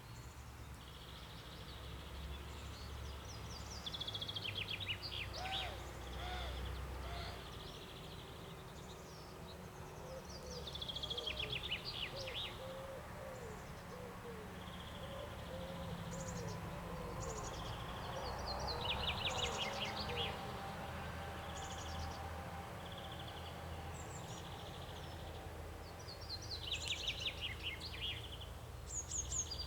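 Birds singing in spring: one bird repeats a short phrase of rapid notes falling in pitch about every eight seconds, while another gives a short high note over and over between them. A steady low rumble runs underneath.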